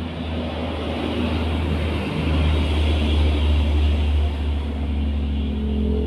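Steady low engine rumble, growing louder over the first two or three seconds.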